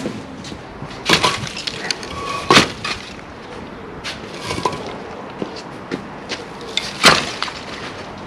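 Broken concrete blocks and brick rubble clattering and knocking as they are thrown into a skip: scattered sharp knocks and cracks, the three loudest about a second, two and a half seconds and seven seconds in.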